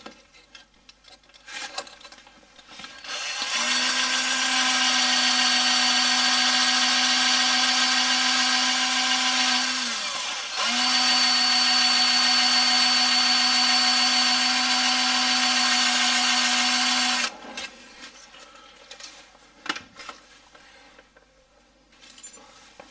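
Power drill turning a left-handed bit into a broken steel timing-cover bolt: a steady whine for about fourteen seconds. About halfway it slows and stops briefly, then runs on. Short clicks and handling knocks come before it starts and after it stops.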